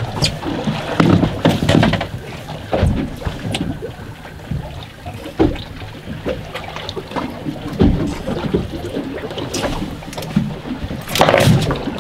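Wind on the microphone and water moving against a small boat's hull, with irregular knocks and thumps as a fish and rod are handled on deck, and a louder burst of noise about eleven seconds in.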